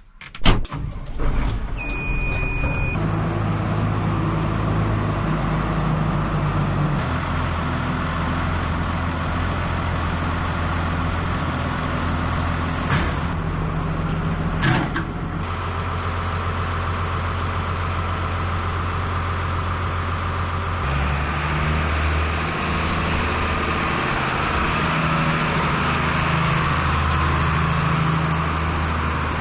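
New Holland TM165 tractor's engine running steadily, with a knock just after the start and a short beep about two seconds in. The engine note shifts about 7 s and again about 21 s in.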